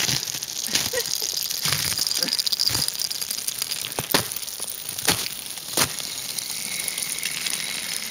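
Sharp crunches and scrapes of feet on a frozen, icy snow crust: about six separate strokes spaced irregularly about a second apart, over a faint steady hiss.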